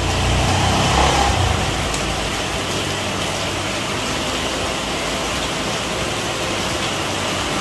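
Steady rush of water pouring from inlet pipes into a concrete fish pond, with a low rumble in the first second or so.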